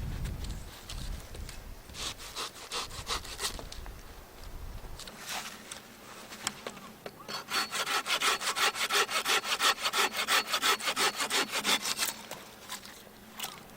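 Hand saw cutting through wood. A few scattered strokes come first, then a fast, even run of strokes for about four seconds from past the middle, which stops shortly before the end.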